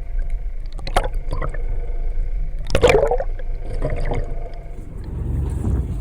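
Fishing boat on the water: a steady low rumble with water sloshing and a few sharp knocks. The loudest sound is a short splashy burst about three seconds in.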